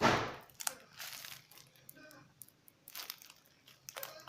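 Homemade paper squishy crinkling as it is squeezed: one loud crinkle at the start, then softer scattered crackles of paper and tape as it shifts and slowly rises back.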